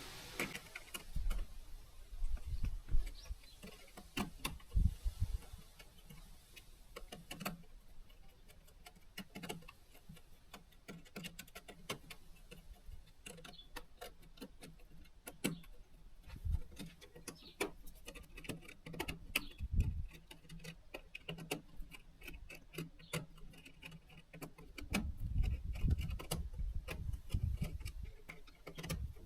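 Irregular sharp clicks and light knocks at an uneven pace, with a few dull low thumps in clusters, as of small hard objects being handled.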